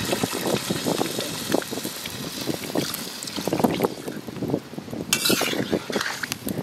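Water sloshing and splashing in an iron karahi of chicken and potato curry as it is added and stirred with a metal ladle, with irregular clinks and scrapes of the ladle against the pan. There is a brief, sharper splash about five seconds in.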